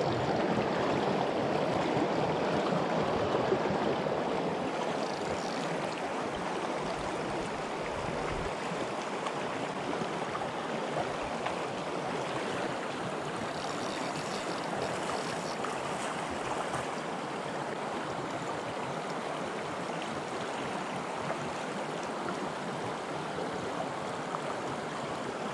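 Shallow, clear stream running over stones: a steady rushing of water, a little louder in the first few seconds.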